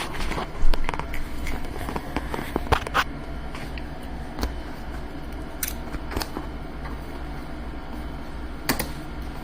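Scattered small clicks and knocks of objects being handled, the loudest a little under a second in, over a steady low hum.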